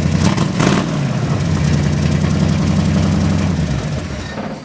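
1970 Ford Mustang Mach 1's V8 engine running steadily, then fading away near the end.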